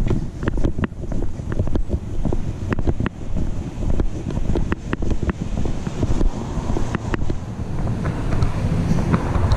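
Wind and handling rumble on a GoPro action camera clipped to a backpack chest strap while walking, with many small irregular clicks and knocks as the camera jolts with each step.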